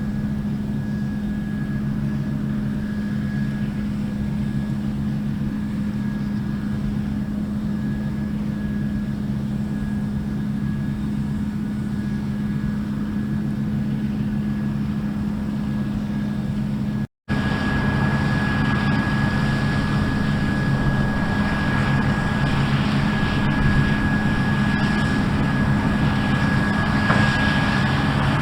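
Harvest machinery running steadily in the field, a constant engine drone with a thin high whine over it. It breaks off for an instant about two-thirds through, then carries on a little louder.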